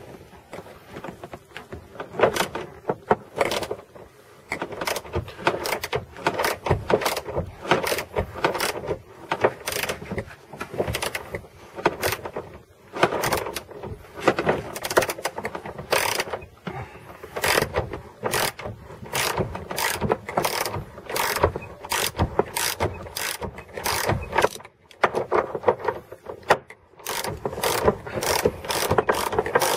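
Socket ratchet clicking in runs of strokes, with short pauses, as a Torx bolt holding the seatbelt anchor is backed out.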